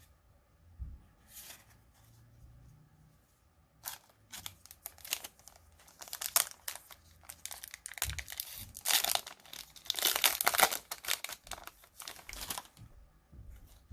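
A Yu-Gi-Oh booster pack wrapper being torn open and crinkled by hand, a dense crackling that starts about four seconds in and is loudest a little past the middle.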